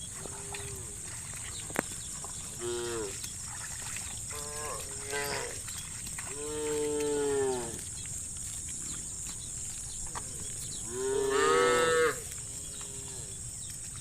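Cattle mooing in turn: about six moos of varying length and pitch, some short and clipped, a long drawn-out one about halfway through and the loudest near the end.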